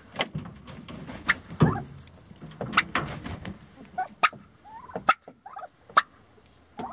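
A turkey pecking at straw on a pickup truck's plastic bed liner, with sharp taps about once a second. A few short soft turkey calls come about five seconds in.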